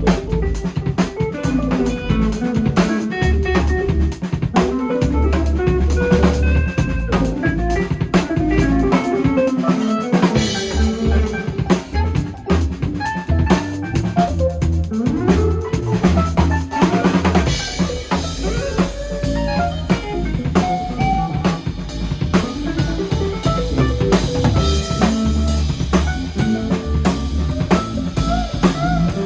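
Drum kit played in an instrumental jam, with kick, snare and rimshot strokes under melodic lines that slide in pitch.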